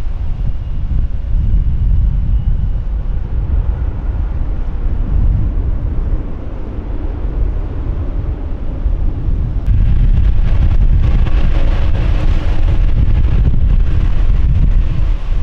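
Wind buffeting the microphone over the rumble of a jet airliner's engines as it takes off and climbs away. About ten seconds in the sound jumps louder, with more hiss and whine, as an Embraer 190 jet's engines run close by.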